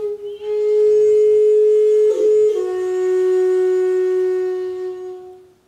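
Background music: a flute holding a long note, then moving down to a lower held note about two and a half seconds in, which fades out near the end.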